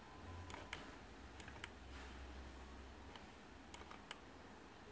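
Faint, irregular clicks of a computer keyboard and mouse, about seven in all, over a steady low hum.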